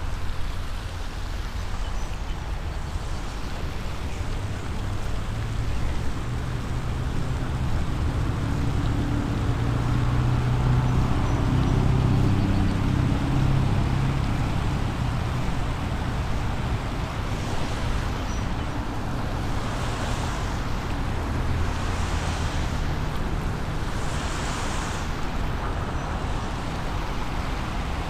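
Steady outdoor rumble and wind noise, with a deeper low drone that swells for several seconds in the middle and then fades, and a few soft hissing swells later on.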